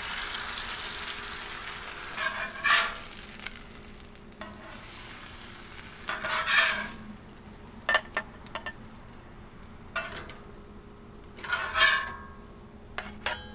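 An egg frying in oil on a steel flat-top griddle, sizzling, the sizzle fading in the second half. Several short scrapes and knocks of a metal spatula on the griddle as the egg is turned and lifted off.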